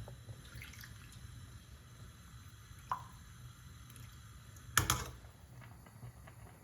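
Small kitchen handling sounds over a low steady hum: a single short drip-like plop about three seconds in, and a sharp double knock near five seconds.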